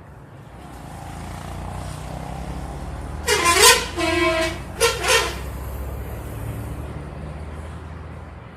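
Bus telolet horn playing a quick run of musical tones, one note bending in pitch, about three seconds in, then a shorter burst about a second later, over a low steady rumble of bus engines and road noise.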